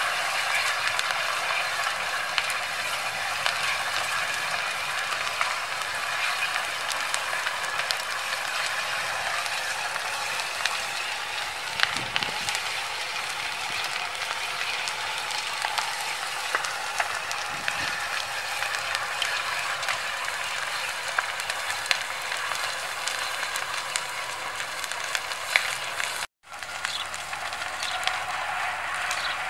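A caravan and wooden shed burning fiercely: a steady rushing crackle of the fire with frequent sharp pops and snaps, one louder pop about twelve seconds in. The sound breaks off for a moment near the end.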